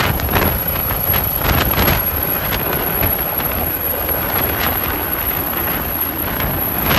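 Helicopter lifting off and climbing: rotor blades chopping over a steady high turbine whine, with wind buffeting the microphone.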